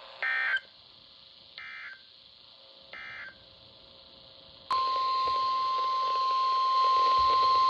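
EAS / NOAA Weather Radio signalling: three short bursts of SAME digital data about a second and a half apart, the end-of-message code closing one warning, the first burst loudest. About four and a half seconds in, the single steady 1050 Hz weather-radio alert tone starts loudly over a radio hiss, announcing the next warning.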